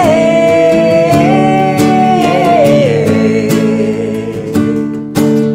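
Acoustic guitar strumming chords under a sung note held for about three seconds, stepping down in pitch at its end, then the guitar playing on alone.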